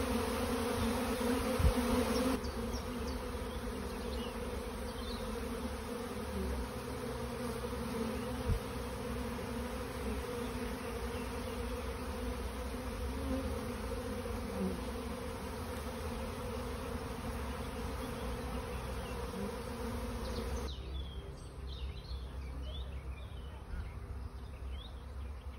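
A honeybee swarm buzzing: the steady hum of many wings from bees clustered and flying around the swarm, growing fainter near the end.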